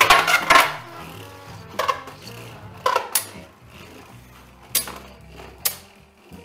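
Two Beyblade Burst spinning tops launched into a plastic Beystadium: a burst of clatter as they land, then sharp clicks of the tops striking each other or the stadium wall about five times as they spin.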